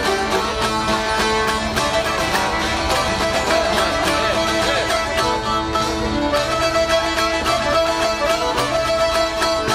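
Live Albanian folk music: a çifteli, a mandolin-type lute and an accordion playing a quick, steadily strummed tune, with fiddle and a man singing over it.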